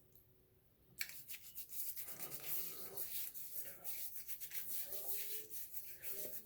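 Hands rubbing water over a stubbly face before shaving, a rapid scratchy rubbing that starts about a second in.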